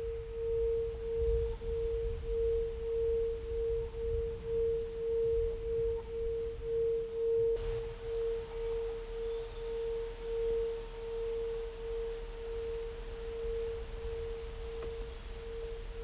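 Singing bowl giving a long, steady hum that swells and fades in slow, regular waves, over a low rumble.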